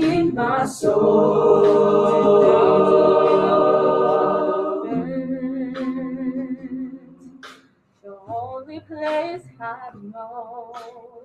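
Mixed-voice a cappella group singing a full sustained chord. About five seconds in it gives way to softer, sparser phrases with gaps between them, a voice singing with vibrato above them.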